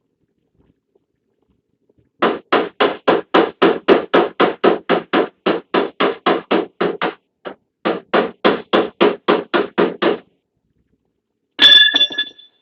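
Body-repair hammer tapping out a dent in the sheet-metal rear door of a Peugeot Boxer van: dull blows at about four a second for some eight seconds, with a short break midway. Near the end comes one sharper metallic strike that rings briefly.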